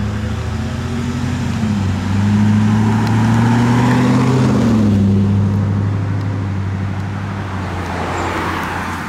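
Pickup truck engine accelerating away through the gears: its pitch climbs and drops back twice, about two and five seconds in, then holds steady. Tyre and road noise from passing traffic swells in the middle and again near the end.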